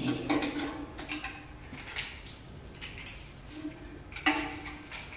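Clicks and metallic clatter of a small electronic keypad safe being handled, its knob and door worked by hand, in a few separate knocks.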